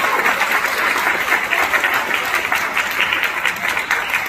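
Audience applauding: many hands clapping at once, a steady dense patter that holds through the whole stretch.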